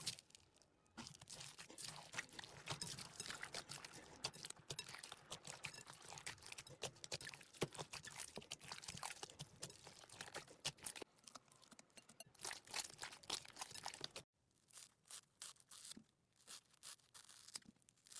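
Slime being squeezed and pressed by hand, giving dense crackling and crunching clicks. About 14 seconds in the crackling cuts off, then comes back sparser.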